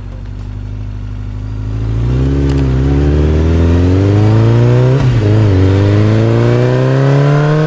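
Motorcycle engine running, then accelerating, its pitch climbing steadily from about two seconds in, with a brief dip about five seconds in before it climbs again.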